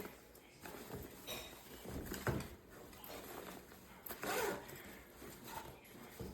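Hardside suitcase being handled: a few scattered clicks and short scraping swishes, the longest about four seconds in, like a zip or shell edge sliding.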